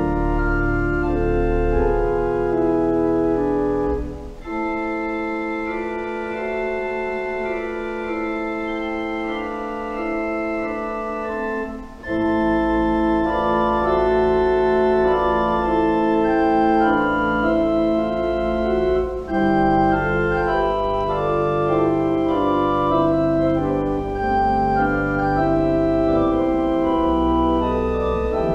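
Church organ playing slow, sustained chords. Deep pedal bass notes drop out about four seconds in and come back about twelve seconds in, with brief breaks between phrases.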